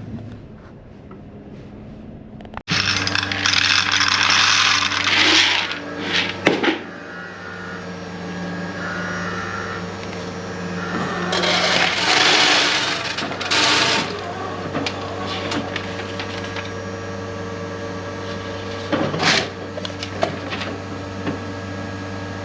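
Shelled corn kernels rattling in two long pours, as a grain sample goes into a tester for a moisture and test-weight reading, over a steady low machine hum. The hum starts abruptly about three seconds in.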